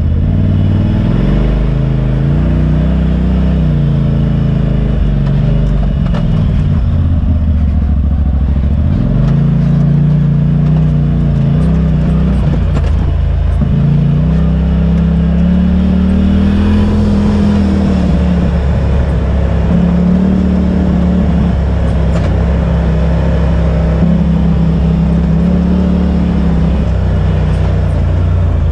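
Polaris RZR side-by-side's engine heard from the cab while crawling along a dirt trail, its pitch rising and falling repeatedly with the throttle over a steady low rumble of drivetrain and tyre noise.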